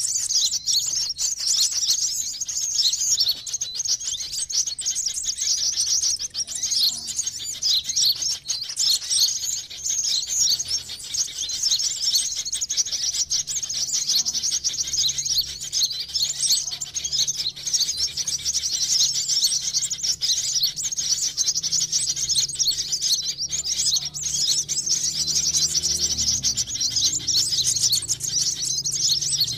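Sunbird lure call recording: a dense, unbroken stream of rapid, high-pitched chirps and twitters.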